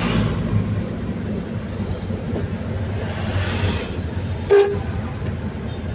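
Steady engine and road rumble of a vehicle on the move, with one short horn toot about four and a half seconds in.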